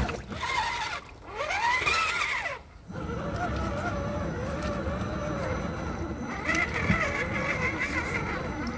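Whine of an RC rock crawler's small electric motor and gearbox, its pitch rising and falling with the throttle as it climbs through the shallow stream, over a steady hiss of running water. The sound drops out briefly twice in the first few seconds, then the motor settles into a steadier, wavering whine.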